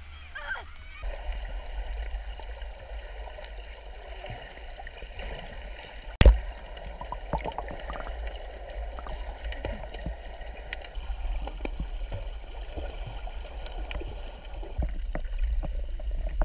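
Muffled underwater water sound picked up by a camera in its waterproof housing while snorkeling: a steady low rumble and gurgling wash from about a second in, with scattered ticks and one sharp knock about six seconds in.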